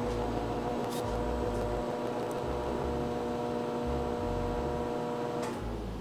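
Toshiba ML2-EC10SA microwave oven running in microwave mode: a steady hum with several pitched tones, which stops about five and a half seconds in.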